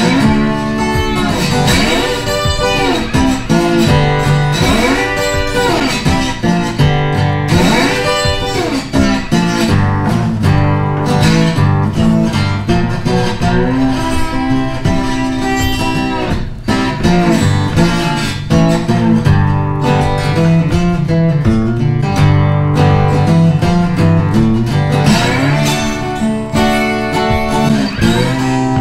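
Background music led by strummed acoustic guitar, with a melody rising and falling over it.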